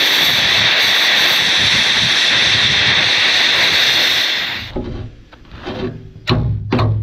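Angle grinder with a grinding disc working on steel, a loud steady high-pitched grind that dies away about four and a half seconds in. Music with plucked, struck notes starts near the end.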